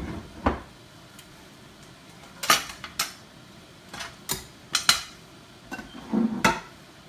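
Kitchen utensils and dishes clinking and knocking against each other: about a dozen sharp clinks at uneven intervals, with a duller knock about six seconds in.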